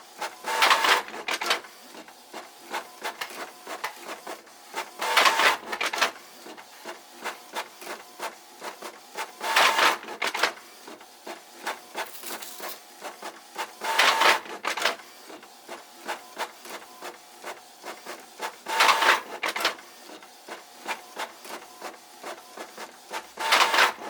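Label printer running off a batch of shipping labels: a burst of printing about every four and a half seconds, with small clicks between.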